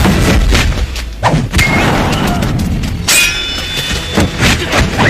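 Film fight-scene sound effects: a string of heavy thuds and blows over a low rumble, with a ringing clang about three seconds in.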